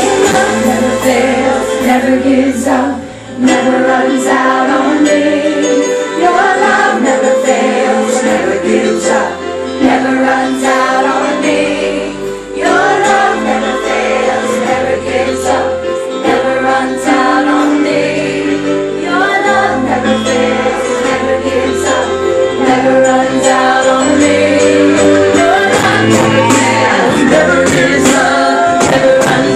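Contemporary worship band playing live, picked up on a phone's microphone: singing over keyboard, a bass line that changes note every second or two, and drums with cymbal hits.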